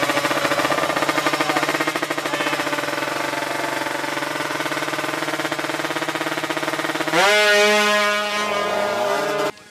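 Drag-race motorcycle engine held at steady high revs on the start line, with a fast pulsing in its note. About seven seconds in it launches: the sound gets louder and the pitch jumps and climbs as the bike pulls away, then it cuts off suddenly near the end.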